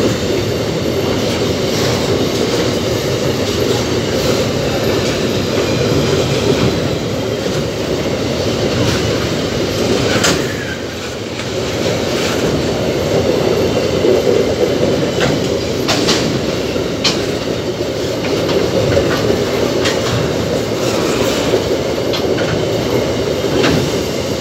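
Empty iron-ore gondola wagons rolling past: a steady rumble of steel wheels on the rails, with sharp clicks and clanks now and then, the strongest about ten seconds in and a couple more around sixteen to seventeen seconds.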